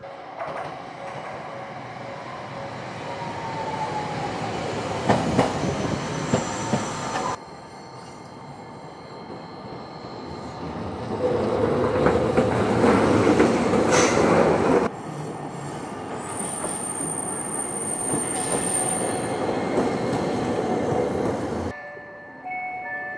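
Toden Arakawa Line electric trams running on the rails: a rolling rumble with a few sharp clicks over rail joints, then a tram passing close and loud. A thin high wheel squeal comes in for a few seconds later on.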